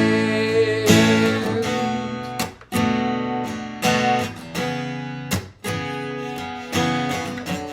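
Martin GPCPA4 acoustic-electric guitar strumming chords through a looper pedal, with two brief breaks in the strumming.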